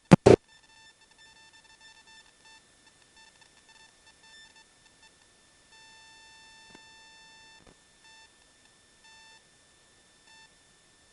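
Faint electronic beeping: a thin tone with overtones sounds in irregular short beeps, with one longer tone about six seconds in.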